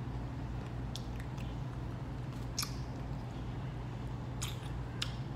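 A person chewing steak with open-mouth smacks and wet clicks, a few separate ones spread through, over a steady low hum.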